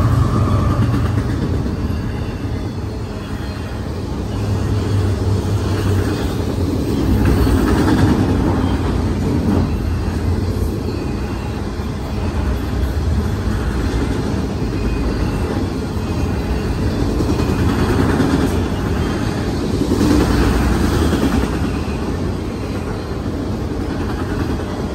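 Autorack freight cars rolling over a steel girder bridge: a steady, loud rumble of wheels on rails that swells and eases every few seconds as the cars pass overhead.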